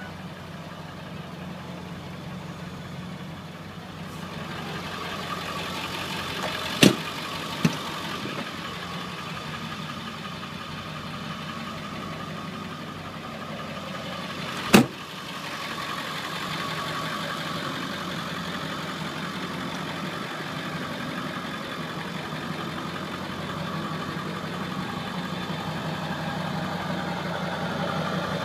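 Ford 7.3 L Powerstroke turbo-diesel V8 idling steadily, with a few sharp clicks a quarter and half of the way through, the second of these the loudest. The idle grows a little louder in the second half.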